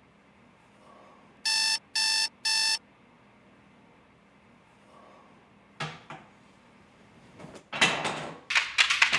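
Digital alarm clock beeping three times, short high-pitched electronic beeps. Near the end, a loud rustle and then quick, regular percussive taps come in.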